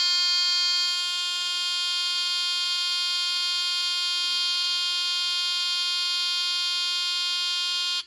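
Mercedes W126 warning buzzer unit sounding one steady buzzing tone, then cutting off suddenly at the very end as its timer switches it off: the repaired seatbelt-reminder timing circuit, set about halfway on its potentiometer, timing out as designed.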